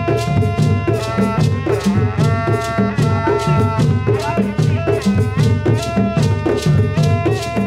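Live traditional drum ensemble playing a fast, steady rhythm on hand drums with shaken rattles. A high melody of held notes that slide into pitch runs over it.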